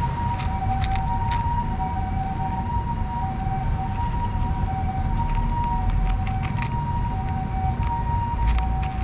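Cats crunching dry kibble out of a plastic box, heard as scattered short clicks. Behind them a two-tone siren holds steady, alternating between two notes, over a low rumble.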